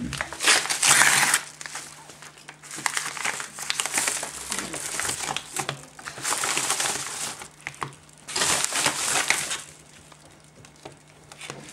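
A padded mailer envelope being handled and opened by hand, its packaging rustling in four loud spells.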